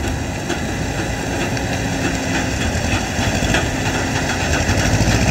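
Heavy truck diesel engine running under load with a steady low rumble as the heavy-haul rig and its multi-axle trailer move off slowly, getting gradually louder toward the end.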